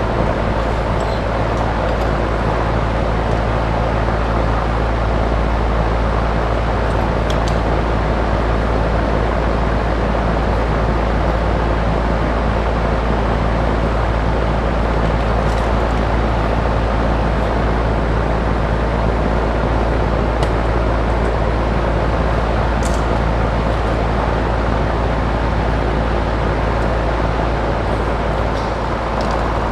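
Steady, loud mechanical noise with a low hum, like a running fan or blower, holding level throughout, with a few faint clicks and taps over it.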